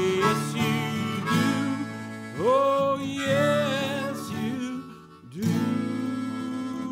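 Acoustic guitar strummed with a harmonica playing over it, its notes sliding up into held, wavering tones. The sound drops away briefly about five seconds in, then comes back with a new held chord.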